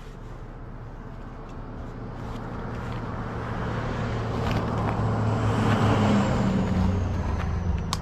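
A car approaching and passing close by: road noise grows steadily louder and peaks about six seconds in.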